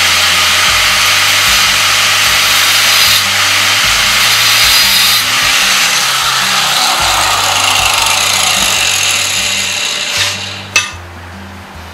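Angle grinder with a thin cut-off disc scoring a groove across a hardened steel jigsaw blade held in a vise, a loud continuous grinding hiss. The grinder is then lifted off and winds down, fading over a few seconds, and a single sharp knock comes near the end.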